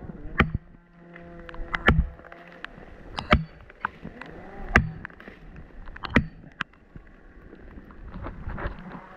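Repeated sharp blows of a striking tool driving a felling wedge into a cut, five hard strikes roughly a second and a half apart.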